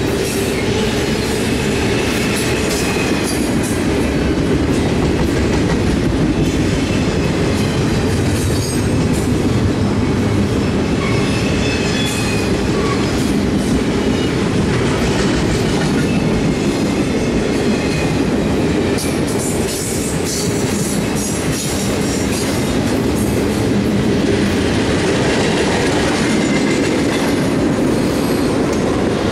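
BNSF double-stack container train's well cars rolling past close by: a steady rumble of steel wheels on rail with clatter over the joints. A few brief, faint high wheel squeals come through.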